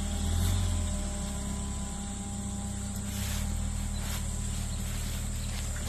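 Daihatsu Terios 4x4's engine running at low revs as it crawls through muddy ruts, a steady low hum that shifts slightly about three seconds in.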